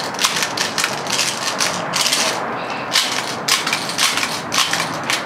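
0.30 g plastic airsoft BBs being thumbed from a loader into an M4 magazine: a run of irregular small clicks and rattles.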